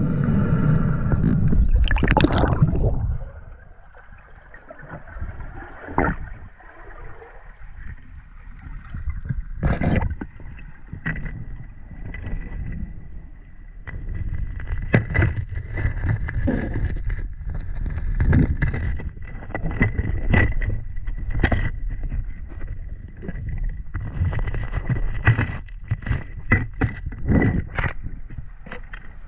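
Water sloshing and gurgling, with scattered knocks and clicks and a faint steady high whine; a loud rushing sound in the first three seconds drops away.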